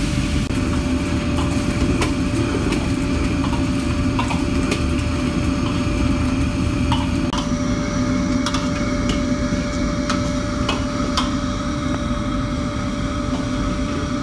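A commercial wok stove's burner and blower run with a steady roar and hum. A metal ladle clinks against the wok at irregular moments while chillies and meat are stir-fried.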